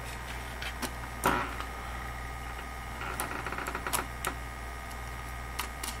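A few light clicks and taps of a small circuit board and acrylic case parts being handled by hand, one sharper click about a second in and a run of faint ticks a little later, over a steady low hum.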